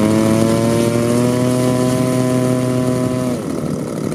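Model aircraft's piston engine running at a steady high throttle, its note creeping slightly higher, then dropping in pitch and wavering about three seconds in.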